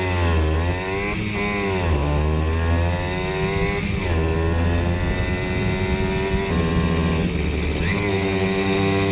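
Simson S51 moped's single-cylinder two-stroke engine revving up and down in quick blips for about the first two seconds, then running at a fairly steady speed.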